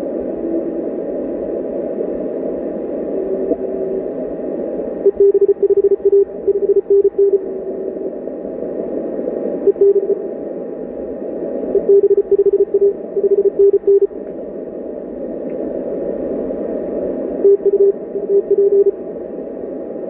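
Morse code (CW) coming through an Icom IC-7610 HF transceiver: a single steady-pitched tone keyed in dots and dashes, in several bursts a few seconds apart, over a constant hiss of band noise narrowed by the receiver's CW filter. A faint steady whistle sits above the noise.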